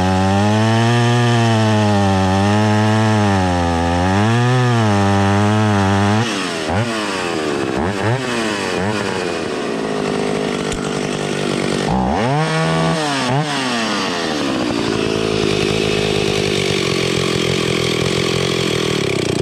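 Stihl 031AV two-stroke chainsaw cutting wood under load, its pitch wavering. About six seconds in it comes out of the cut and revs up and down unevenly, then settles to a steady idle in the last few seconds. The owner puts the struggling down to fuel starvation: the carburettor's metering lever was set too low, so it runs well for a while and then starves out.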